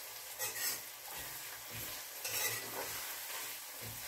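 Metal spoon stirring onions and carrots frying in a metal pot, over a steady sizzle; two louder scrapes come about half a second and two and a half seconds in.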